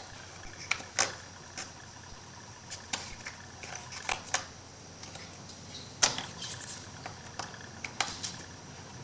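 Light, irregular clicks and taps of small MDF wood pieces being handled and set down on a work table, about a dozen over the stretch.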